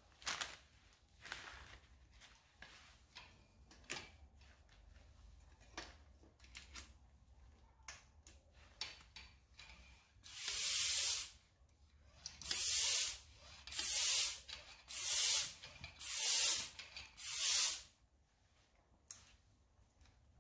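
Bicycle pump inflating a new inner tube: six loud hissing strokes of air, about one every second and a half, starting about halfway through. Before them there are light clicks of handling.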